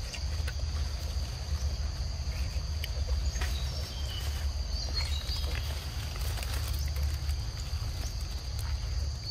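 Forest ambience: a steady high-pitched insect drone, over a constant low rumble, with a few faint clicks and brief high chirps about five seconds in.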